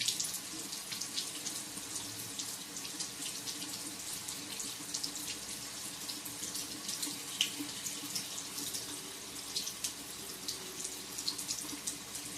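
Bathroom tap running steadily into a sink while a safety razor is rinsed under it, with small irregular splashes and ticks over the steady flow.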